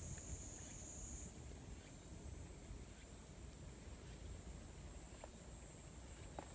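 Faint, steady, high-pitched insect chorus, its pitch stepping up slightly about a second in, over a low rumble.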